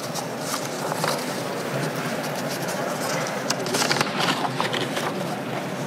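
Background noise of a large, sparsely filled chamber during a lull: a steady hiss with faint, indistinct voices and scattered clicks and knocks, several of them close together a bit past the middle.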